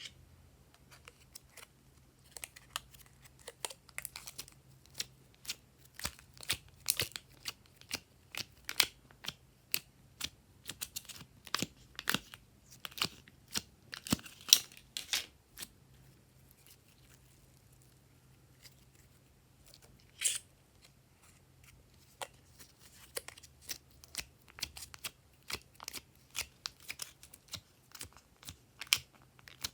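Glossy slime being squished and worked by hand, giving irregular sharp sticky clicks and pops. They come thickly for the first half, thin out for several seconds, and pick up again near the end.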